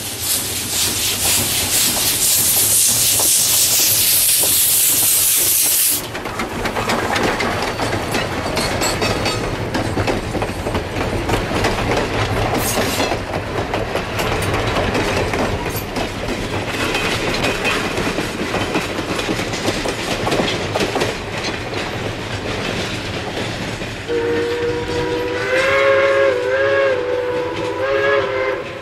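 Steam locomotive passing close with its cylinder cocks open, a loud hiss of venting steam that cuts off abruptly about six seconds in. Its coaches then roll by with a steady clickety-clack of wheels over the rail joints. Near the end a multi-toned steam whistle sounds in a long blast that wavers in pitch.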